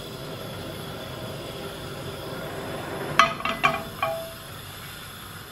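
Frying pan shifted on a gas hob's metal pan support: a few sharp clinks with short ringing about three to four seconds in, over a steady faint hiss.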